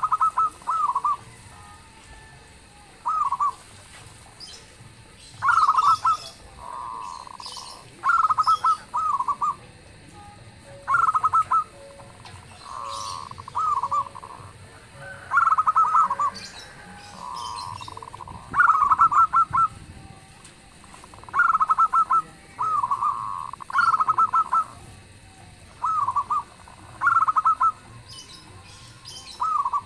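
Zebra doves cooing: loud phrases of rapid, stuttering coo notes, repeated every second or two, with softer, smoother calls at the same pitch in some of the gaps.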